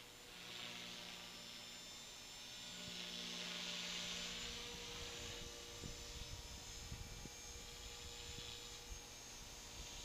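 Electric T-Rex 450 clone RC helicopter flying at a distance: a faint, steady motor and rotor whine that swells about three to four seconds in and then eases off. Wind bumps the microphone in the second half.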